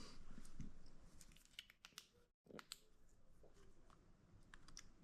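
Near silence: faint room tone with a few scattered light clicks.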